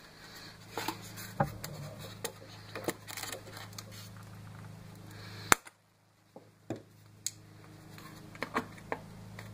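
Hands handling a foam model airplane and working it with a small hand tool: scattered light clicks and taps over a steady low electrical hum. One sharp snap comes about five and a half seconds in, and the sound then cuts out for about a second.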